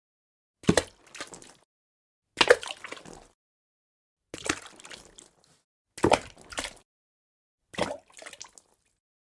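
Single water drops falling into water, five drips about every two seconds. Each is a sharp plop followed by a short, smaller splash.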